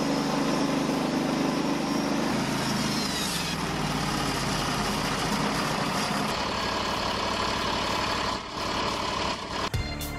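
A machine's engine running steadily, its pitch dropping about two seconds in. A faint falling whine comes around three seconds.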